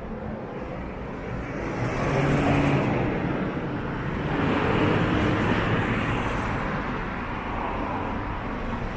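City street traffic: cars driving past, the tyre and engine noise swelling about two seconds in and again around five seconds.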